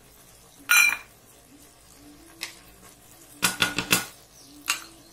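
Kitchen utensils clinking while fried cashews are added to a pot of pulao: one sharp ringing clink about a second in, then a quick cluster of clinks and taps past the middle and one more near the end.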